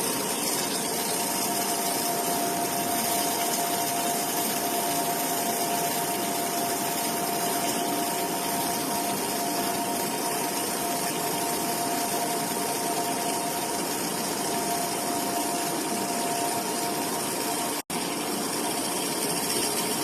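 Welding cobot station at work: a steady, even hiss carrying two constant hum tones, with a momentary drop-out near the end.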